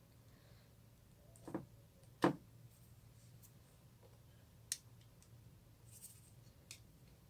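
Glossy slime being squished and worked by hand: a few scattered sticky clicks and small pops over a low hum. The two loudest come about one and a half and two and a quarter seconds in.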